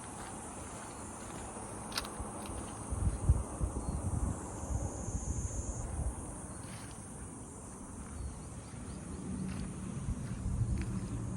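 Insects chirring in a steady, high, even drone, with a second, louder insect buzz for about a second halfway through. Uneven low rumbling and a few soft thuds run underneath.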